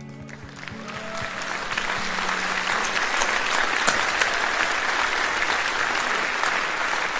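A large auditorium audience applauding, the clapping swelling over the first second or two and then holding steady. Intro music with sustained low notes fades out under it in the first few seconds.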